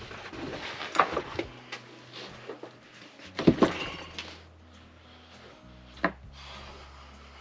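Knocks and rustling from a tool backpack being set down and handled on plywood decking, with a loud clatter about three and a half seconds in and a single sharp knock near six seconds.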